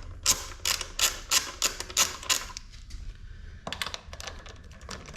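Ratchet wrench clicking as it backs out the 8mm bolts holding a dirt bike's side plastics: steady clicks about three a second, a short pause, then faster clicking again.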